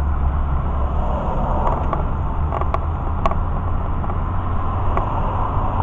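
Steady road and engine noise heard inside a moving car's cabin on the highway: a low rumble with tyre hiss. A few light clicks come through it.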